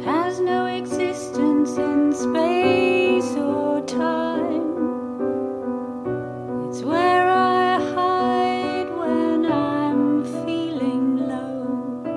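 Background music: a song with piano and a singing voice.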